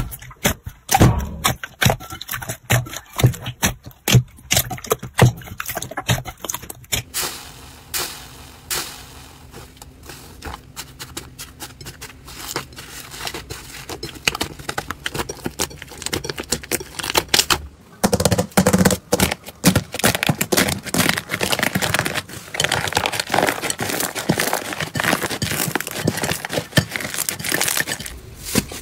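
Slime being squeezed, stretched and kneaded by hand in a bowl: a dense run of sticky crackles, pops and tearing sounds. The texture of the crackling changes twice, about 7 and 18 seconds in, as a different slime is worked.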